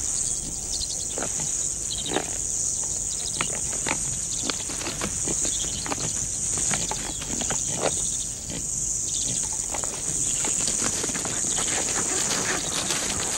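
Two topi bulls fighting with locked horns: irregular knocks and clacks of horn on horn, with grunting from the animals. A steady high insect chorus runs underneath.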